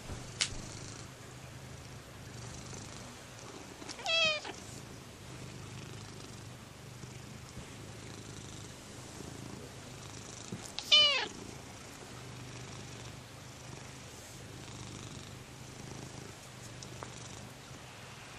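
Domestic cat purring steadily, broken by two short, high meows that drop in pitch, about four seconds in and again about eleven seconds in.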